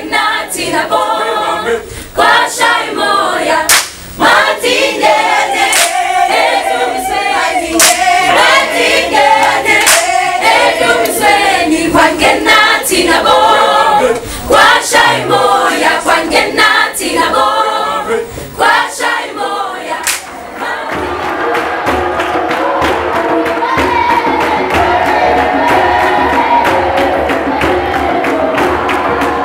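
A choir singing without instruments, punctuated by sharp hand claps about once a second. About 21 seconds in, this gives way to a different, denser music track with a quick percussion beat.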